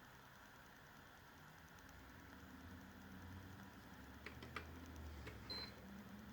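A PS4 console's single short high beep, as when its power button is touched, about five seconds in. It comes among a few faint clicks over a low hum.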